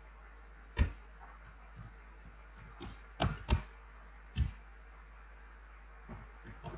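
Scattered computer keyboard keystrokes: single taps about a second apart, with two in quick succession in the middle, over a faint low hum.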